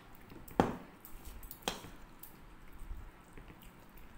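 Eating rice and curry by hand off a plate: soft squishing of fingers mixing the food, with two sharp clicks about a second apart near the start.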